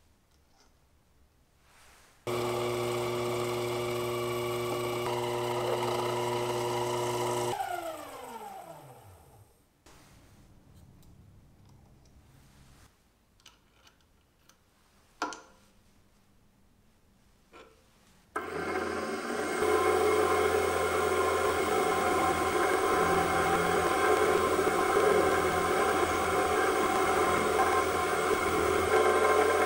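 A small benchtop lathe's motor starts and runs steadily for about five seconds, then spins down with a falling whine. After some quiet handling and a click, a small milling machine's spindle starts about eighteen seconds in and runs steadily while a drill cuts into the end of a small copper part, a rough, grainy cutting noise over the motor hum.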